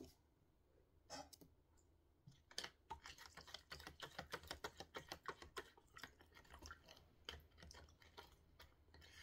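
A spoon scraping inside a plastic sauce packet, the packet crinkling and clicking: a single click about a second in, then a quick, irregular run of crinkles, several a second, for most of the rest.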